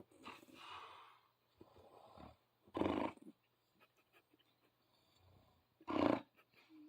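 A sleeping person snoring in a fart-like way: a breathy snore near the start, then two loud, short, rasping snores about three seconds apart.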